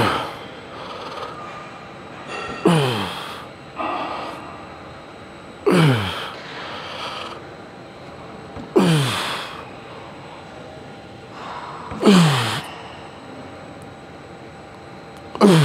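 A man groaning out loud with effort on each rep of a heavy, high-rep leg set. The strained groans fall in pitch and come about every three seconds, with quicker breaths between them.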